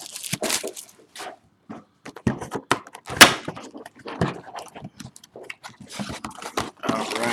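Trading card boxes and their wrapping being opened and handled: a run of crinkles, rustles and light taps, with one sharp snap about three seconds in.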